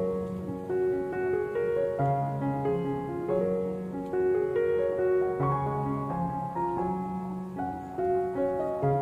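Background piano music: a melody of single notes over low chords.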